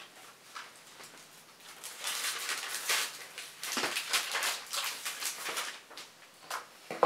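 Paper rustling and crinkling in bursts as a wrapped present is unwrapped, with one sharp knock right at the end.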